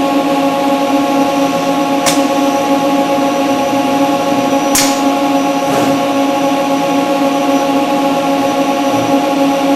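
A steady machine hum from the robot cell, holding one pitch without change, with sharp clicks about two and five seconds in.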